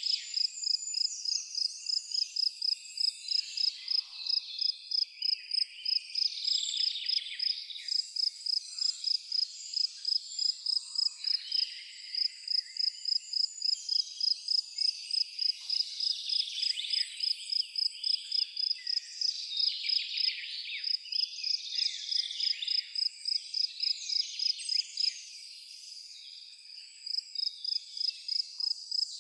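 Crickets chirping in a fast, even pulse on one high note, breaking off briefly about twelve seconds in and again for a couple of seconds near the end, while birds sing over them.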